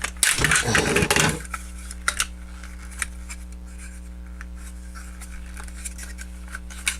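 Plastic toy robot parts being handled and sorted: a burst of rustling clatter in the first second or so, then a few light plastic clicks over a steady electrical hum.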